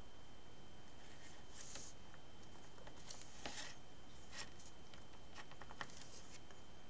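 Faint scratches and light taps of a thin metal sculpting tool pressing texture lines into soft polymer clay, a few small scrapes at a time over a low steady hiss.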